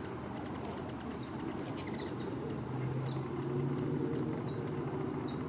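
Several short, high bird chirps scattered over a few seconds, above a steady low rumble that swells a little about three seconds in.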